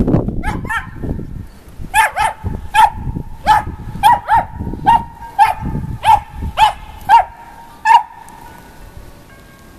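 Parson Russell terrier puppy barking: a run of about fifteen short, high-pitched yaps, roughly two a second, that stops about eight seconds in.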